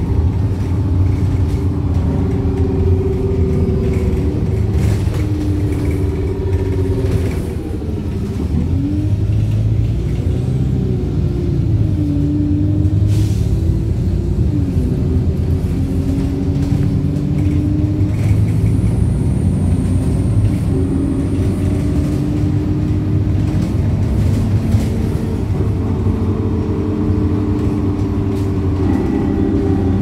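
Wright StreetLite single-deck bus heard from inside the saloon while under way: a steady low engine and road rumble with a whine that glides up and down in pitch several times as the bus changes speed. The uploader calls the bus's differential dodgy.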